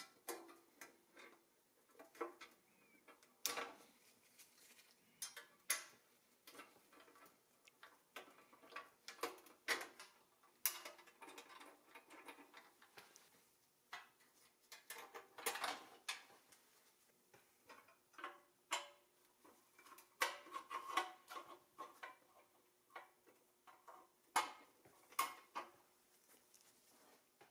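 Irregular light clicks, taps and clinks of pressed-steel toy parts handled with gloved hands, as the boom of a restored Tonka mobile crane is fitted to the crane body and pinned in place.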